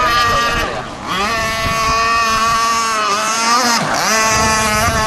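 Two-stroke gas engine of a radio-controlled hydroplane boat running flat out, a steady high-pitched buzz. Its pitch briefly dips and climbs back just before a second in and again near four seconds.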